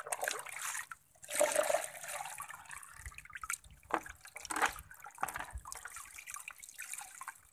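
Water poured from a cut-off plastic bottle into a garden hose, splashing into a basin of water in uneven pours, with a few short knocks. The inlet hose is being filled to prime a pressure washer's suction line.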